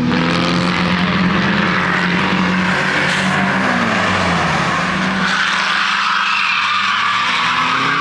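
Car engine revving hard, its pitch rising and falling, while the tyres squeal as the car drifts sideways through a corner; the squeal grows louder near the end.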